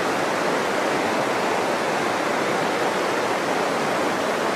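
River water rushing steadily over rocks and rapids.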